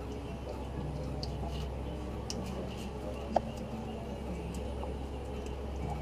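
Faint clicks and ticks of a new spin-on oil filter being screwed on and hand-tightened, with one sharper click a little past the middle, over a steady low hum.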